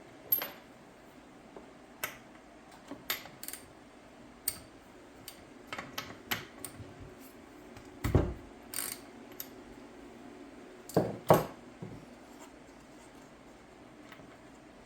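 Spark plug being removed from a McCulloch Pro Mac 55 chainsaw with a wrench: scattered metallic clicks and clinks of the tool on the plug and saw, with heavier knocks about eight and eleven seconds in.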